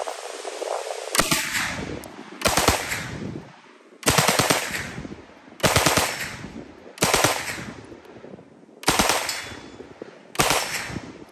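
Beretta 38/42 9mm submachine gun firing full auto in seven short bursts of a few rounds each, about one every second and a half, each shot-group ringing away after it. The rate of fire is low and slow enough to be controllable.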